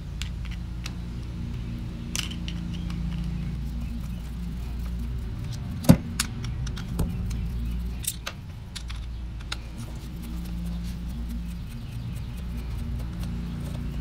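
Scattered small metallic clicks and clinks as a screwdriver backs out the float-bowl screws of a small outboard carburetor and the loose screws are set down on a wooden surface; a sharp click about six seconds in is the loudest. A steady low hum runs underneath.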